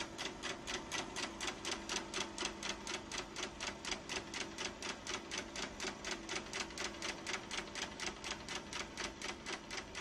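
Rapid, even mechanical ticking, about five ticks a second, over a faint steady hum.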